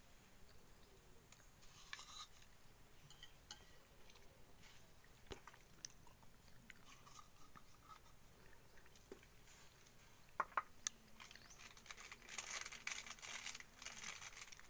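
Faint chewing and crunching close by, with scattered small clicks, two sharper ones about ten and a half seconds in and a denser crackly run near the end.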